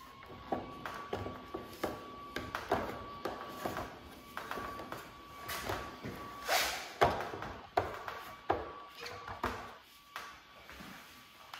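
Plastic motor end cap of a DeWalt DW717 miter saw being handled and fitted against the motor housing: irregular clicks, taps and knocks of plastic on metal, with a louder scraping rustle about six and a half seconds in.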